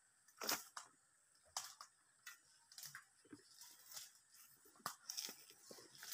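Faint, irregular rustling and crunching of footsteps through ferns and dry brush, a few crackles a second with short gaps.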